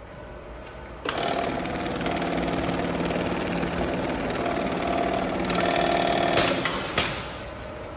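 Automatic bag-closing sewing head stitching the top of a full woven sack as the conveyor carries it through: a fast, dense rattling chatter that starts abruptly about a second in and runs for about six seconds, ending with a sharp click.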